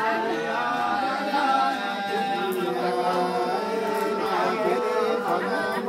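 Nùng sli folk singing, unaccompanied, with long held notes that waver and slide in pitch.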